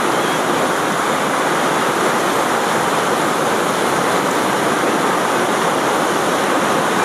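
Whitewater rapids rushing, a loud, steady roar of churning water.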